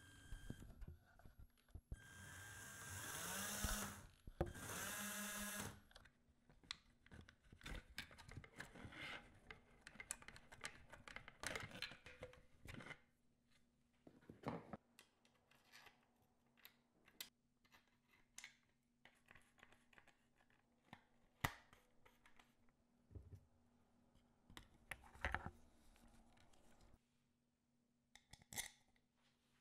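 Four small DC gear motors of an RC car whirring twice in short bursts, rising in pitch as they spin up. This is followed by scattered light clicks and rustles of plastic parts and small bolts being handled.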